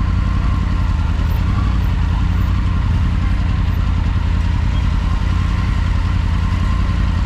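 Motorcycle engine running steadily at low speed as the bike rolls slowly in traffic, heard from a mount on the bike itself.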